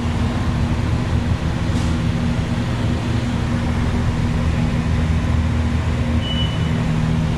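Steady low hum with an even rushing noise from a running machine in the workshop. A brief faint high-pitched tone comes about six seconds in.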